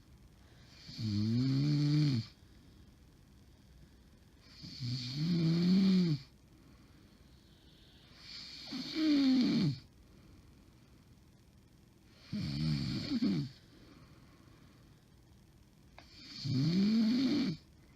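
A woman snoring in her sleep: five snores about four seconds apart, each with a moaning tone that rises and then falls, sounding like a farm animal's call. The uploader takes snoring like this as a sign that she has sleep apnea.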